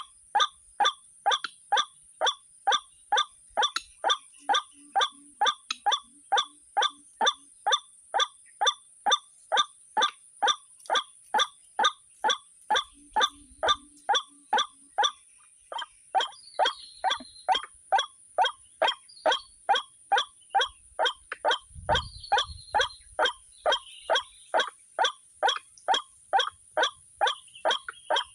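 White-breasted waterhen's repeated 'ruak' call, an even run of short notes at about two and a half a second that breaks off for about a second halfway through and then resumes. A steady high hiss runs underneath.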